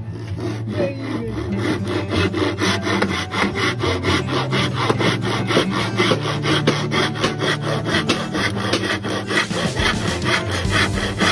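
Hand saw cutting wood with quick, even strokes, about six a second.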